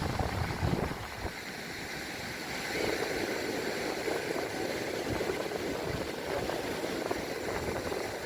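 Wind buffeting the microphone with low rumbling gusts for about the first second, then a steady rushing wash of seaside wind and surf.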